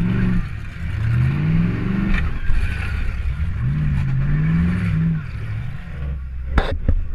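Demolition derby car's engine revving up and down several times, heard from inside the car. Near the end come two sharp impacts in quick succession.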